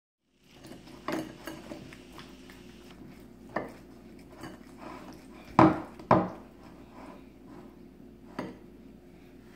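Bowls knocking and clinking on a tabletop as a child's hands work in the slime inside them: several sharp knocks, the loudest two about half a second apart midway, over a faint steady hum.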